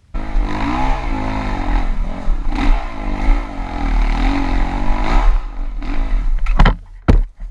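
Avantis 300 Pro motorcycle's 177 engine starting and revving up and down, with a rattle from inside the engine that the owner takes for a knock from something gone wrong in the motor. It drops away about six and a half seconds in, followed by two sharp knocks.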